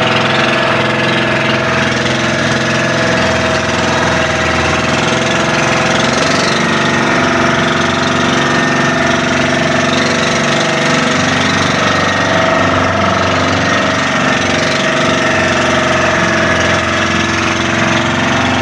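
Engine of a motorized outrigger bangka running steadily at cruising speed, an even, unchanging drone.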